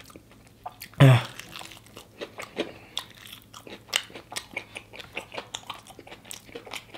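Close-up chewing and crunching of crispy fried chicken coated in hot sauce, with many small crunches and wet mouth sounds. A brief vocal sound, like a hum or grunt, about a second in.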